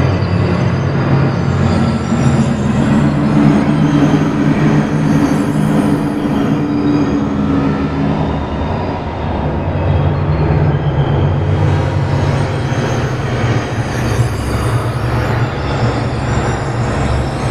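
Electronic ambient sound effects: a dense, loud rumbling noise under low sustained drones, with thin high tones flickering above, much like a train's rumble and squeal. The drones thin out about nine seconds in and come back soon after.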